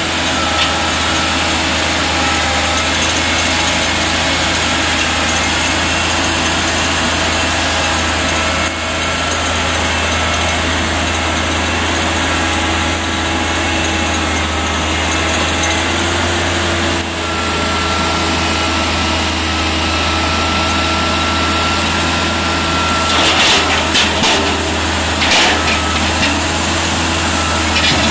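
Manitowoc 14000 crawler crane's diesel engine running steadily, a deep rumble with a faint steady whine above it. A few sharp knocks come near the end.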